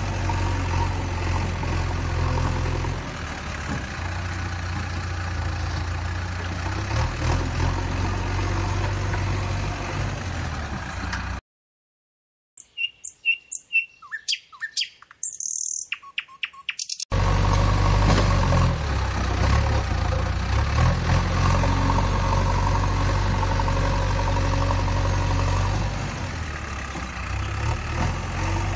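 Low, steady engine sound with a few rises and falls, cutting out abruptly about eleven seconds in. After a second of silence, birds chirp in quick short calls for about four seconds, and then the engine sound returns just as steady.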